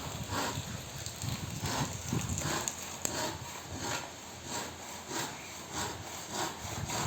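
Hand tool working the edge of a high-pressure laminate sheet to trim off the excess, in short, even scraping strokes at about two a second.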